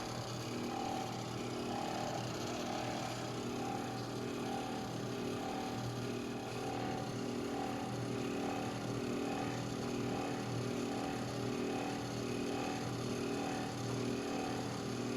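A small motor humming steadily with an even throb about twice a second.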